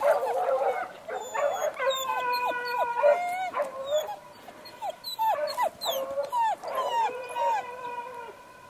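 A pack of hunting hounds baying on a track, several voices overlapping: short falling barks over long, drawn-out howls.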